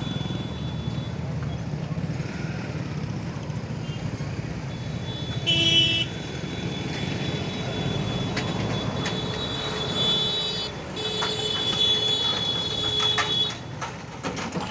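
Train rumbling steadily past at a railway level crossing. A short horn blast sounds about six seconds in, and in the second half a high steady whine comes with irregular clacking.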